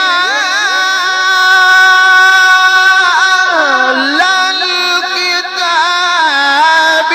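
A male Quran reciter chanting in the melodic tajweed style, holding one long, ornamented note that wavers. The pitch dips lower about three and a half seconds in and rises back.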